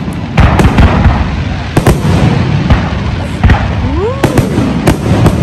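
Fireworks display: aerial shells bursting overhead one after another, sharp cracks and booms over a continuous low rumble.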